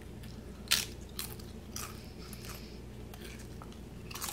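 A Pringles Cheddar Cheese crisp bitten and chewed: one sharp crunch as it is bitten, then a few fainter crunches as it is chewed.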